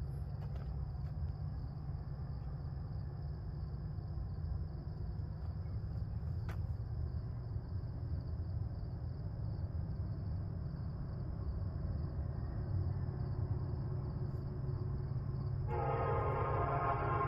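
Low steady rumble of an approaching freight train, slowly growing louder, then about sixteen seconds in a locomotive's multi-chime air horn starts sounding, several notes together in one held chord.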